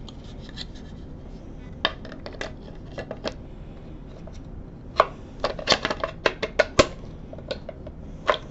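Parts of a Bausch & Lomb StereoZoom 7 stereo microscope being handled and fitted back together: scattered hard clicks and clinks, with a quick run of them about five to seven seconds in and a sharp knock at the end.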